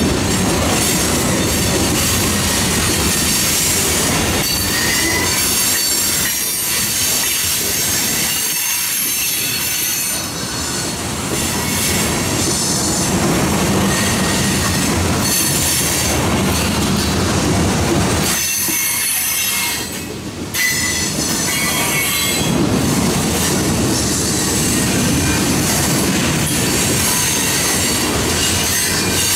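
Freight train of boxcars, tank cars and covered hoppers rolling past close by: steel wheels rumbling and clattering over the rails, with high-pitched wheel squeal that comes and goes as the cars take the curve.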